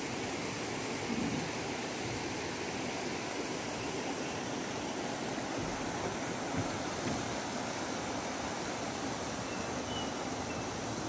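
Steady rushing of a shallow stream running over rocks and stones.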